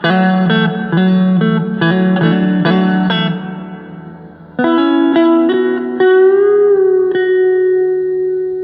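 Agile TC 625 electric guitar played clean with a little reverb. A quick run of picked single notes dies away, then more notes follow, ending in a long held note with a wavering pitch.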